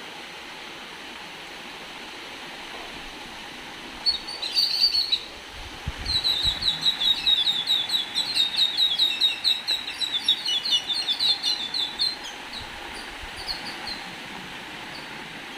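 A bird chirping in a quick run of high, repeated notes, several a second, that thins out and stops near the end, over a steady hiss of falling rain.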